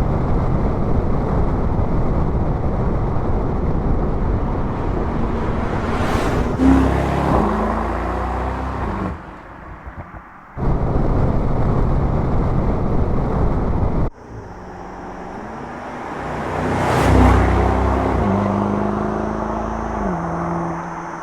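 2022 Mercedes-AMG SL 55's 4.0-litre biturbo V8 on the road, over steady road and wind noise. Its exhaust note swells to a peak and falls away twice, with the pitch stepping down as it passes. The sound cuts abruptly a few times between shots.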